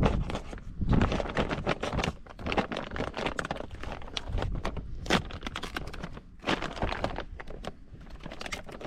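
Close handling noise: a dense run of crinkling, rustling and sharp clicks, with the odd knock, easing off briefly partway through.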